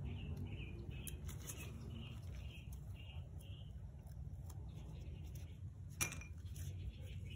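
Faint small scratching and crinkling of protective film being picked and peeled off a small kit part with a pointed weeding tool. A sharp clink about six seconds in, as a part is set into a glass bowl.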